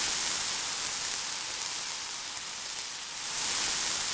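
Tomatoes and ground green masala paste sizzling in hot oil in a kadhai: a steady frying hiss that swells a little near the end.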